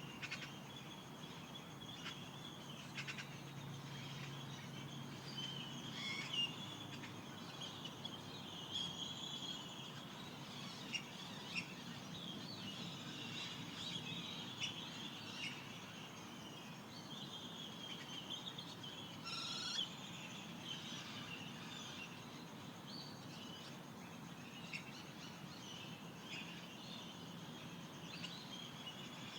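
A dawn chorus of desert birds: many short chirps, trills and calls over a faint steady hiss, with one louder call about two-thirds of the way through.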